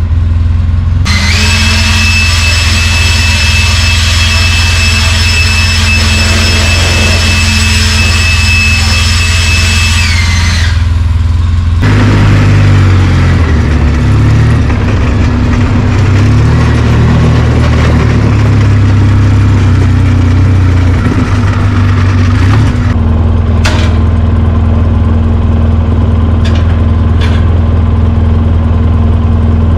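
ATV engine running steadily, then changing pitch as the quad is ridden. For the first several seconds a steady high whine sits over it. Near the end come a few sharp knocks as parts are dropped.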